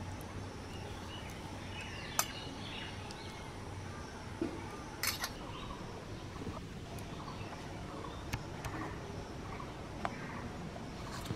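A few sharp clinks of stainless steel plates and bowls being handled and set down, the loudest a short cluster about five seconds in, over a steady outdoor background with faint bird chirps.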